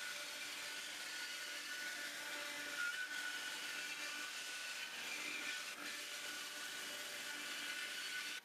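Homemade wooden band saw resawing a 7 1/4-inch-wide board of hard maple on edge: a steady cutting hiss with a faint whine from the saw. Its motor is drawing only about 5 amps of its roughly 30-amp full load, so it is cutting well within its power.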